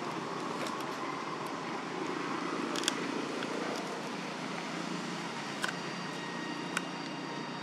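Steady background noise with a few faint high steady tones, broken by several sharp clicks, the loudest about three seconds in and two more near the end.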